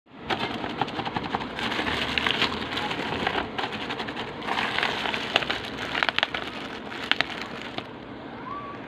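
Plastic courier pouch crinkling and rustling as hands press, smooth and grip it, with many sharp crackles, easing off near the end.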